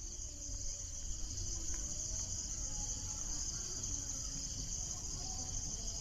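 Steady, high-pitched chorus of insects in lush vegetation, unbroken throughout, with a low rumble underneath.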